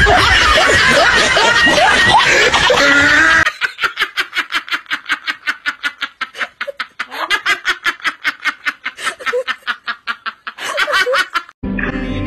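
A group talking and laughing, then a woman laughing hard in rapid, repeated bursts of about five a second for several seconds. Music starts near the end.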